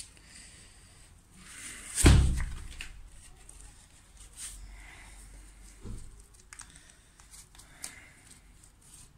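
A heavy thump about two seconds in, then soft knocks and light rustling as gardening tools and gloves are set down and a folded paper of seeds is picked up.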